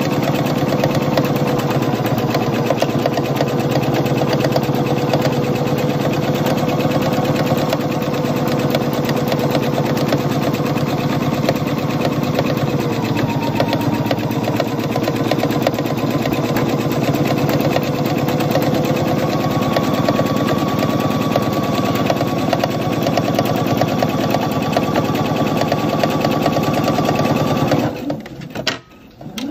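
Computerized electric sewing machine stitching steadily through layered fabric at a fast, even needle rate. Its motor speed dips and picks up again partway through. Near the end it stops for about a second, then starts up again.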